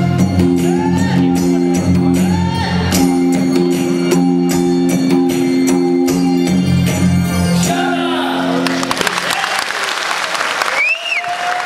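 Nepali folk dance music with steady drum beats, held instrumental tones and singing, which stops about eight seconds in as an audience breaks into applause. One rising-and-falling call rings out over the clapping near the end.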